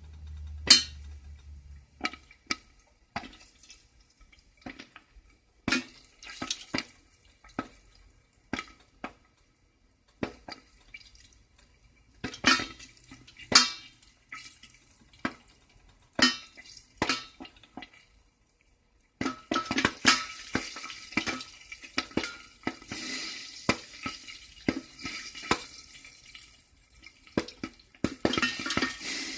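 Popcorn kernels starting to pop in hot oil in a covered pot: scattered single sharp pops at uneven intervals, then about two-thirds of the way in a steady sizzle sets in and the pops come faster.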